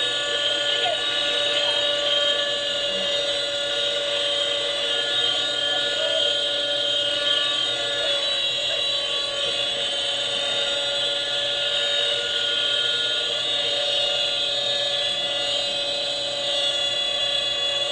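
Helicopter turbine engine whining steadily at a high, even pitch, with rotor and engine noise beneath. It is heard as playback of helicopter videos through computer speakers.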